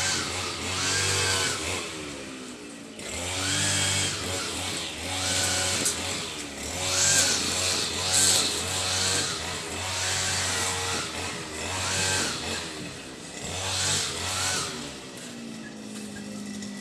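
A small engine revving up and dropping back over and over, about every one and a half to two seconds, then settling to a steady idle near the end.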